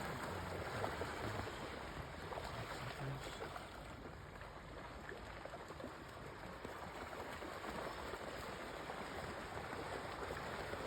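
River water running, a steady rushing hiss without pauses.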